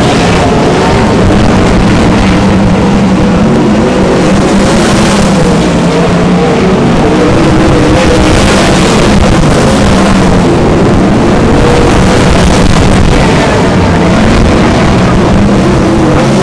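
Winged dirt-track sprint cars racing, their V8 engines running loud at high revs, with the pitch repeatedly rising and falling as they accelerate down the straights and ease off into the turns.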